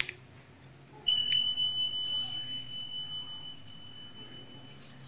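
Subscribe-button animation sound effect: a single high, pure ding like a notification bell. It starts suddenly about a second in and rings on, slowly fading.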